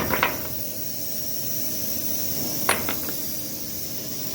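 Sharp clinks and knocks of hand tools working a cracked insulator loose: a quick cluster right at the start and one sharp knock just under three seconds in, over a steady hiss.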